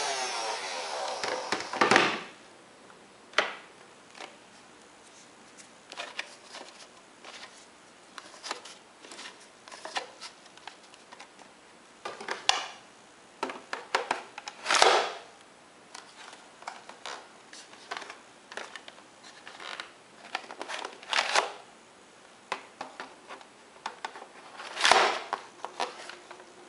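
Motorized flywheels of a Photon Storm toy foam-dart blaster winding down over the first couple of seconds, then scattered plastic clicks, scrapes and rattles as the blaster and its ammo clip are handled and the clip is fitted.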